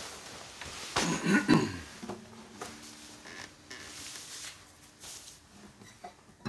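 Acoustic guitar being handled and settled on a lap: a loud knock and rustle of the body brushing against clothing and bedding about a second in, then its open strings ringing faintly.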